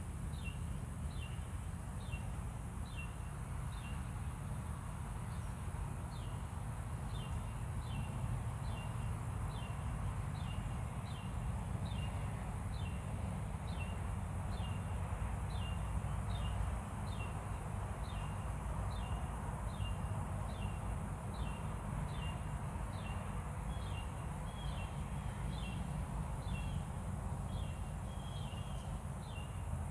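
Outdoor garden ambience: short high chirps repeating about twice a second, each falling slightly in pitch, over a steady low rumble and a faint steady high hiss.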